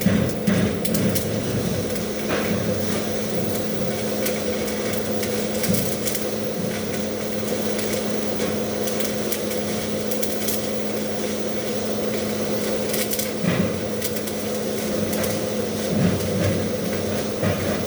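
MMA (stick) welding arc crackling and sizzling steadily over a constant low hum, running almost without a break through a long weld run.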